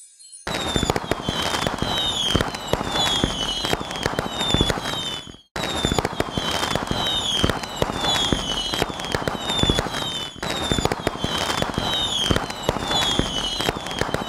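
Fireworks sound effect: dense crackling and popping with short falling whistles several times a second. It starts about half a second in and repeats as a roughly five-second loop, with a brief dropout between each repeat.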